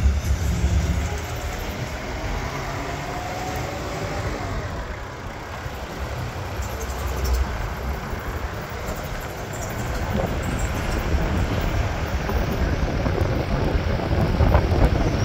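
A vehicle driving slowly through town streets: engine and road noise, with an uneven low rumble of wind on the microphone.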